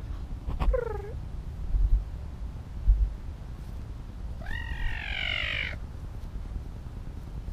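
Caracal meowing twice: a short call falling in pitch about a second in, then a longer one of about a second that rises and falls, near the middle. Two low thumps on the microphone come between the calls.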